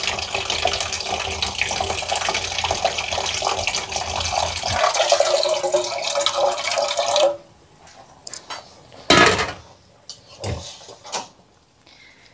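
Water running, with a rising tone in its last couple of seconds, stopping sharply about seven seconds in. Then a few short knocks, the loudest about nine seconds in.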